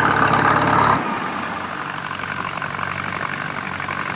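McCormick-Deering farm tractor engine running steadily. It is louder for the first second, then drops suddenly to a lower, steady level.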